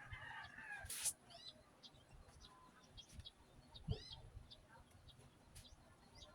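Faint background of small birds chirping in short, repeated calls. In the first second there is a brief voice-like call, and there is a sharp click about a second in and a low thump about four seconds in.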